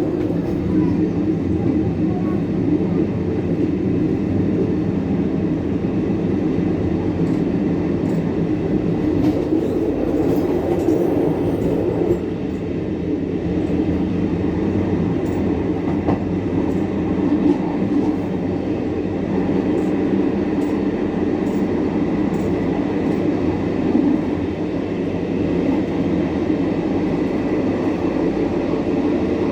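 Passenger train running steadily along the line, a continuous low noise of wheels on rails with a few faint clicks.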